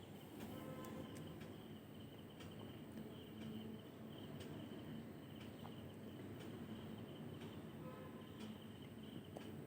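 Crickets chirping faintly in a high, pulsing trill, with a few soft clicks.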